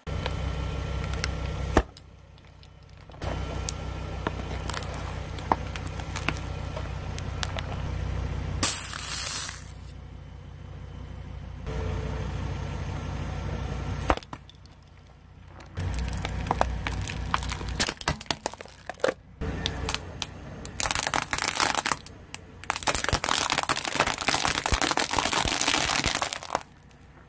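A car tyre rolling slowly onto objects on asphalt and crushing them over a low, steady engine hum: cracks, crackles and crumpling of plastic packaging and a drinks carton. The sound comes as a string of short takes that each start and stop abruptly, with loud crushing noise about nine seconds in and again near the end.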